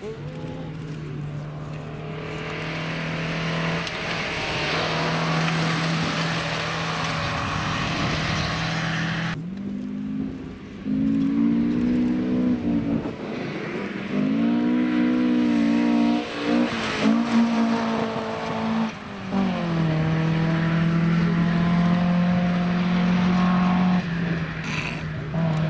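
Historic rally cars driven hard on a gravel stage, one after the other: a Toyota Corolla, then a first-generation Toyota Celica. Each engine is held at high revs. The first pass carries a hiss of gravel spraying from the tyres. In the second, from about nine seconds in, the engine note steps up and down with throttle and gear changes before holding steady at high revs.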